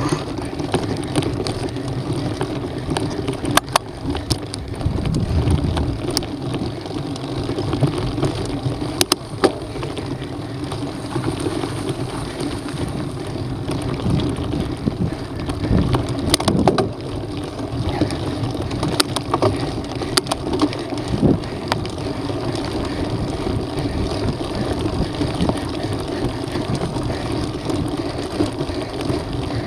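Mountain bike rolling along a rough dirt trail: a steady rumble of knobby tyres on dirt and wind on the microphone, with occasional sharp clicks and knocks as the bike rattles over stones.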